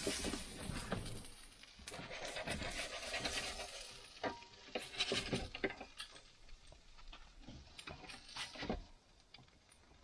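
Scattered clinks, taps and scrapes of a metal spatula and cutlery on enamel plates as fried eggs are served onto toasted buns.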